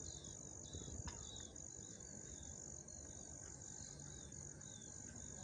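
Faint steady high-pitched insect trilling, with short falling chirps repeating over it and a single faint click about a second in.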